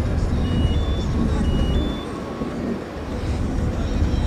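Steady low outdoor rumble with a brief dip about two seconds in. Over it, an electronic two-tone beep, a lower note then a higher one, sounds twice within the first two seconds.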